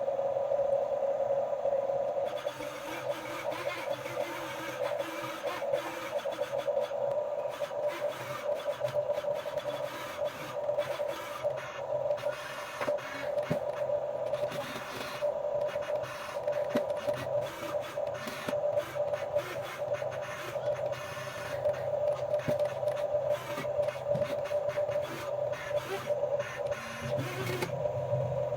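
Huina 1550 radio-controlled toy excavator's small electric gear motors whirring with a steady hum. From about two seconds in until near the end, irregular clicking and scraping run over the hum.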